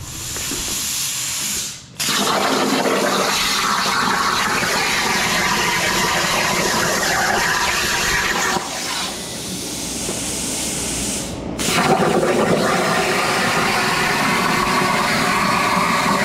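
CNC plasma cutter torch on a Langmuir Crossfire Pro table cutting sheet steel: a loud steady hiss of the plasma arc and its compressed air. It cuts off sharply about two seconds in and again around eleven seconds, and is quieter for a few seconds before the second break.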